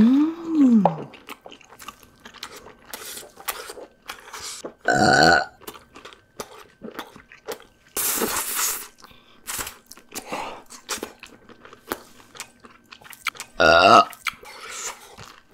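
Close-up chewing and crunching of crunchy food, with many short crunchy clicks, broken by loud burps: a short one that rises and falls in pitch at the start, a big one about five seconds in, and another near the end. A loud hissy burst comes about eight seconds in.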